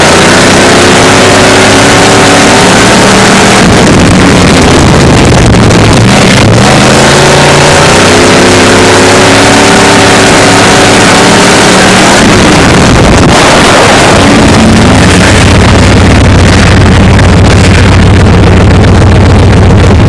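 Dirt track stock car's engine heard from inside the cockpit, revving up and easing off again and again, loud enough to distort. In the last few seconds it settles into a steady lower note.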